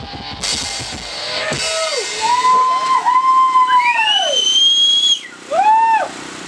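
A live band finishing a song: a cymbal crash and the last drum hits in the first two seconds, then the drums stop. After that come high, sliding whistle-like tones that rise and fall in arcs for a few seconds.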